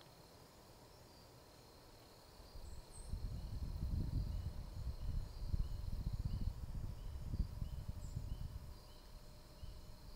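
Low gusting wind rumble on the microphone, starting about two and a half seconds in. Under it run a faint steady high hum and a string of soft, quick high chirps.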